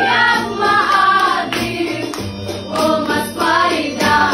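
A group of young women singing a song together in harmony, several voices at once, over a steady low accompaniment.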